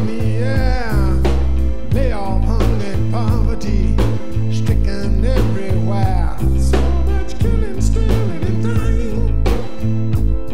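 Music over the end credits: a song with a heavy bass line, a steady drum beat and a lead melody that slides up and down in pitch.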